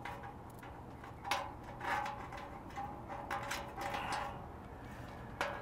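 Faint handling noise as a wiring harness in corrugated plastic conduit is slid through a hole in a satellite dish: a few short, scattered scrapes and knocks.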